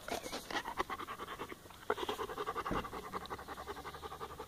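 Bernese Mountain Dog panting rapidly and steadily, right up close to the microphone.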